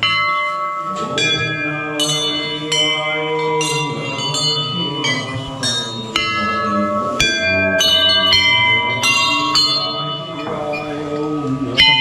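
Metal bells of several different pitches struck one after another, about once or twice a second, each stroke ringing on under the next.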